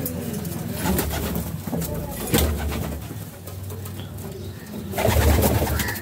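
Racing pigeons cooing, with scattered light clicks and two louder low rumbling stretches, one about two and a half seconds in and one about five seconds in.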